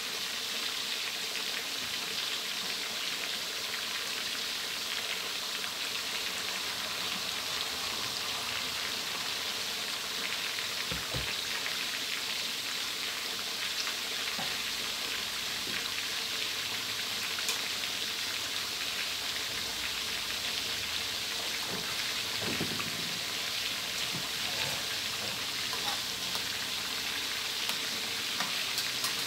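Pieces of fermented fish (pla som) deep-frying in hot oil in a steel wok: a steady, even sizzle.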